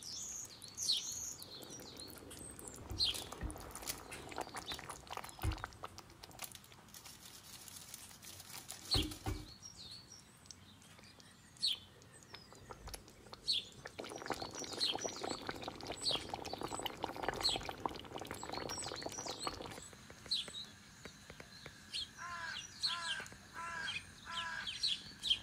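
Small birds chirping off and on, short high calls scattered throughout, with a run of four quick repeated notes near the end. A few soft knocks sound in the first half, and a low, even hiss runs for several seconds in the middle.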